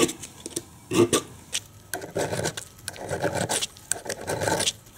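Steel needle file rasping on the steel jaws of a pair of pliers, in a series of short back-and-forth strokes, the later strokes longer.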